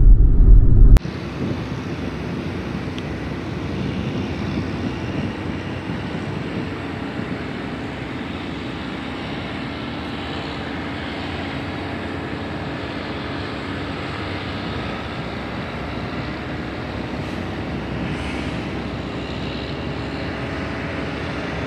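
About a second of loud in-car road rumble that cuts off abruptly, then a steady, even rumble of distant motor noise.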